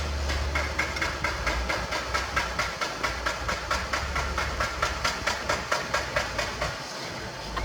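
Heavy diesel construction machinery running, with a low rumble and a fast, even clatter of about five knocks a second.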